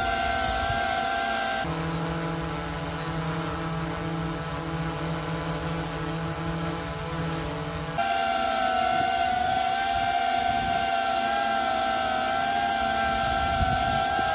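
DJI Avata 2 FPV drone hovering, its propellers giving a steady high whine over a lower hum. The sound changes abruptly about two seconds in and again about eight seconds in.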